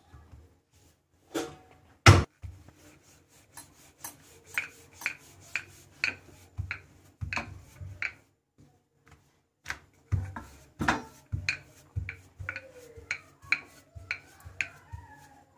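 Wooden rolling pin rolling dough out on a wooden chopping board, knocking on the board about twice a second as it is pushed back and forth, with one louder knock about two seconds in.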